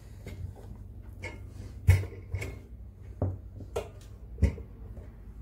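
Metal impulse bag sealer handled and turned over on a hard surface: a few scattered knocks and clicks, the loudest about two seconds in and near four and a half seconds in.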